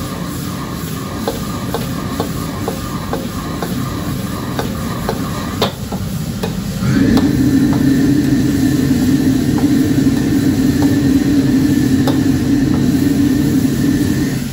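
Long beans sizzling in a wok while a metal ladle scrapes and taps the pan about twice a second. About seven seconds in, a much louder steady mechanical drone with a high whine sets in, then stops near the end.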